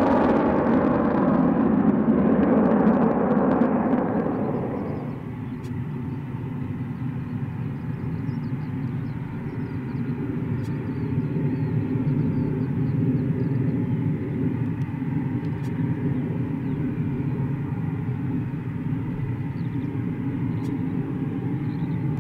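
Jet noise from two departing Douglas A-4 Skyhawks, loud at first and cutting away about five seconds in. After that comes the steady running of a Eurofighter Typhoon's twin EJ200 turbofans as it rolls slowly on the runway ahead of its takeoff, with faint bird chirps above it.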